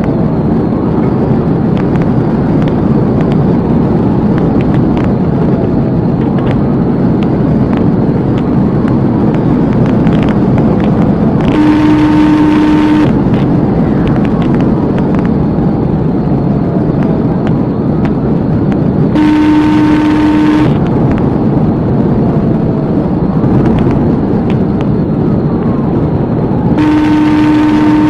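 Steady engine, tyre and wind noise inside a police cruiser at highway speed during a pursuit. A horn sounds three times, each blast about a second and a half long and about seven seconds apart.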